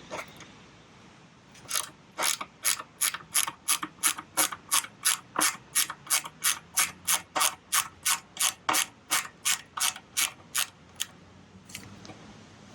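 Ratchet clicking in a steady run, about two and a half clicks a second for some nine seconds, as a Torx 20 screw is backed out of the fuel pump mount on a Harley-Davidson.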